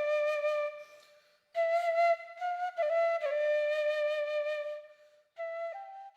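Background music: a solo flute plays a slow melody of held notes that bend and slide between pitches, in phrases broken by short pauses about a second in and near the end.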